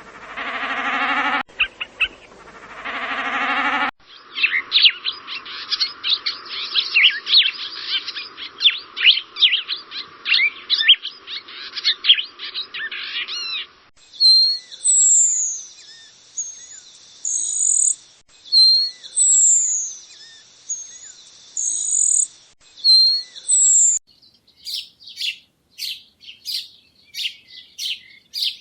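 Several different wild birds' calls, one recording after another. First a low, buzzy call in a few long bursts; then a dense chatter of many overlapping chirps; then a short phrase of high falling whistles repeated about every two seconds; and near the end a quick run of sharp chirps.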